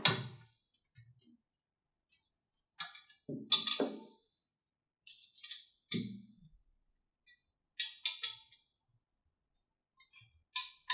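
Scattered metal clinks, taps and knocks as metal office-chair parts and a small hand tool are handled during assembly. About a dozen short sharp sounds with quiet between them, with the loudest clatter about three and a half seconds in.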